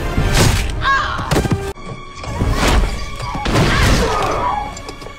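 Dramatic score music under a fight: several sharp hits and thuds of blows and bodies landing on a dirt floor.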